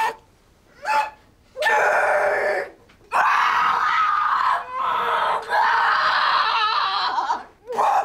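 A person screaming: a few short cries, then one long scream lasting about four seconds with a couple of brief breaks.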